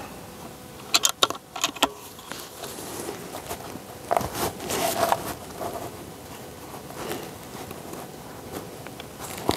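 Nova Vista Leviathan PCP air rifle being handled: a quick run of metallic clicks about a second in, then rustling handling noise, and one sharp click near the end.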